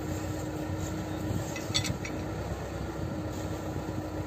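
Soviet T-40 tractor's diesel engine running steadily, with a brief metallic clink near the middle.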